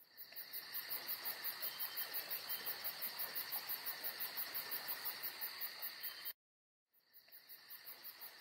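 A faint high-pitched trill, pulsing about four or five times a second. It cuts off abruptly a little after six seconds in and fades back in about a second later.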